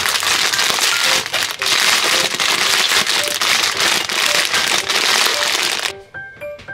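Plastic instant-ramen packet crinkling and crackling as the dried noodle block inside is crushed by hand, a dense crunching that stops suddenly near the end.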